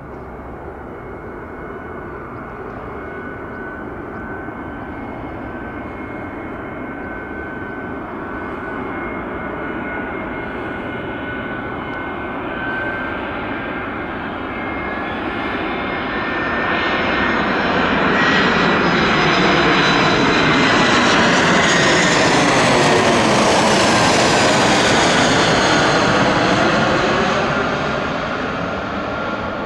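Airbus A320-200 jet airliner on final approach, its two jet engines passing low overhead: a steady whine over a rushing noise that builds for about two thirds of the time to a loud peak with a sweeping, phasing sound, then begins to fade as the plane moves away.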